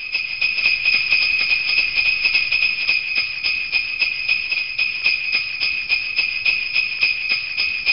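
Sleigh bells jingling in a fast, steady rhythm, with a faint low rumble underneath.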